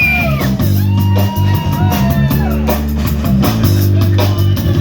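Live blues band playing: lead guitar with bent, sliding notes over steady bass notes and regular drum kit beats.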